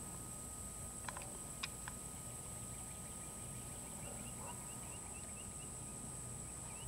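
Quiet outdoor ambience with a steady high-pitched hiss, a few soft clicks in the first two seconds, and a run of faint short chirps from a bird about four to six and a half seconds in.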